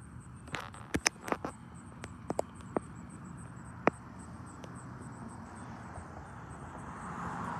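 Small waves lapping against a seawall, with scattered sharp ticks and slaps, most of them in the first few seconds, over a faint, high, rapidly pulsing insect chirp. A soft rushing hiss builds near the end.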